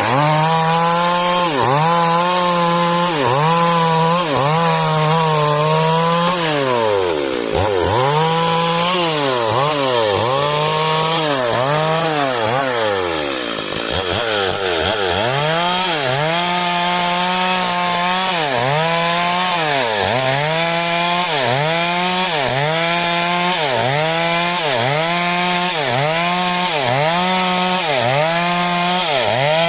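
Stihl chainsaw cutting heartwood timber into door-frame stock, running at high revs with its pitch dipping under load about once a second as the bar works through the wood. Between about 6 and 14 seconds in, the dips come deeper and slower.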